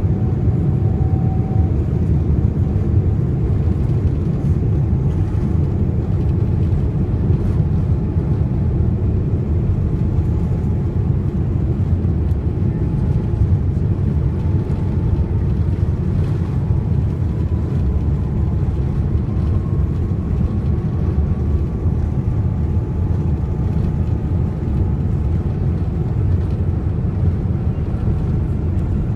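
Boeing 787 airliner at takeoff heard from a window seat in the cabin: a loud, steady low rumble of engines and wheels on the runway, with a faint whine that slowly rises in pitch through the second half.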